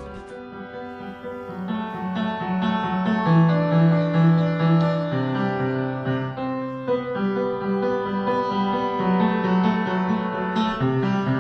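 Solo piano playing a slow piece, a melody of single notes over held low notes.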